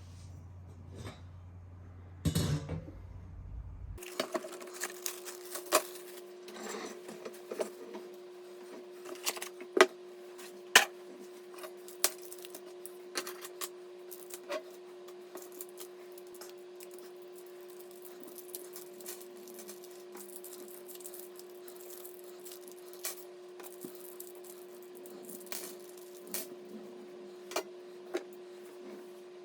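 Light clicks and small metallic clinks at irregular moments as PC parts and screws are handled during assembly, over a steady hum. The background changes suddenly about four seconds in.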